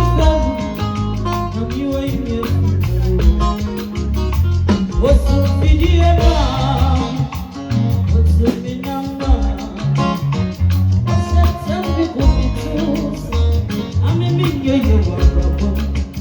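Music with a sung vocal line over heavy bass and a steady beat.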